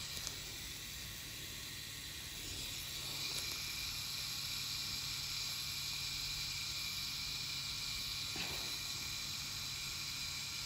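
Permanent-makeup (micropigmentation) pen running with a steady high hissing buzz as it implants pigment in hair strokes along an eyebrow; it grows a little louder about three seconds in.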